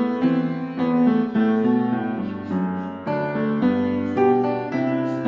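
Background piano music: a slow melody of struck notes, about two a second, each fading before the next.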